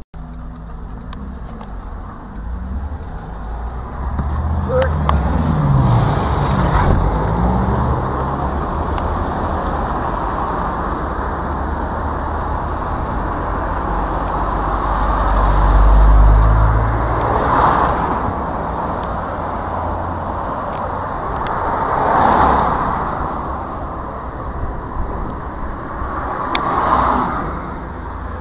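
Street traffic noise: a steady rumble of car engines, with vehicles swelling past about three times in the second half.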